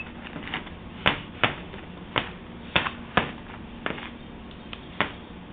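A series of sharp clicks or taps, about eight, irregularly spaced a half-second to a second apart.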